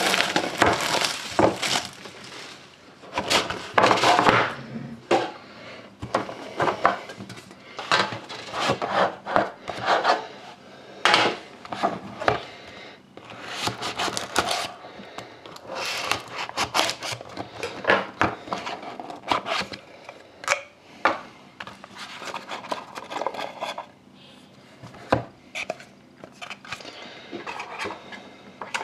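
Hands opening a sealed cardboard box of trading cards: irregular rustling, rubbing and scraping of plastic wrap and cardboard, with a knife slicing through the box's seal partway through.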